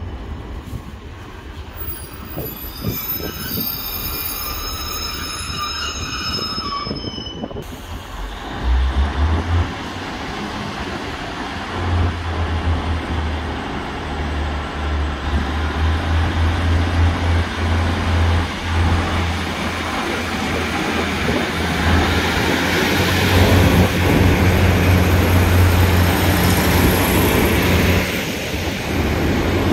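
Northern Class 156 diesel multiple unit approaching and passing, with a high squeal from its wheels in the first several seconds. Its diesel engines then drone low and steady, growing louder as it runs by.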